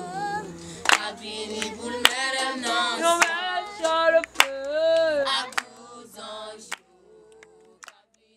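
A group of people singing together, with sharp hand claps about once a second; the singing and clapping stop about seven seconds in.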